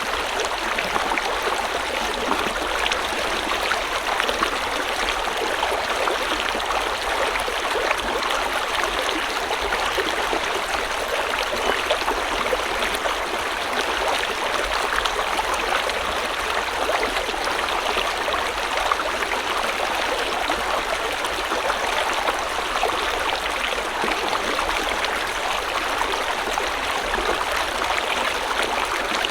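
A stream or small river flowing steadily, a continuous splashing rush of water over stones.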